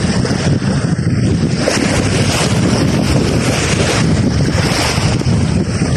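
Wind buffeting the phone's microphone, with small waves breaking on a sandy shore.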